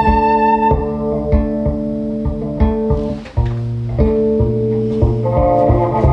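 Layered, looped NS Design CR6 electric cello music: held notes that change pitch every second or two over a steady low rhythmic pulse, with a brief dip in loudness about three seconds in.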